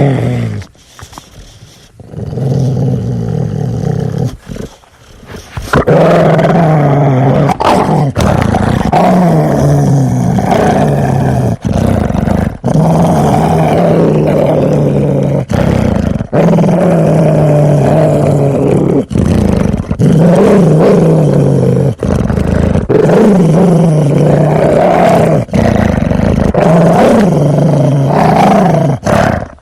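Aggressive dog growling: long, deep growls broken by brief pauses. The growls are patchier in the first few seconds and almost unbroken from about six seconds in.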